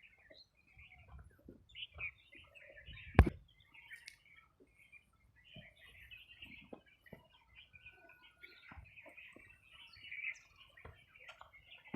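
Small birds chirping and twittering steadily, with scattered faint clicks and one sharp knock about three seconds in.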